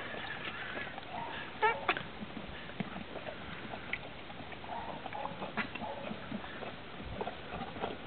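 Horses drinking coffee from a hand-held cup: scattered small slurps, lip smacks and muzzle clicks.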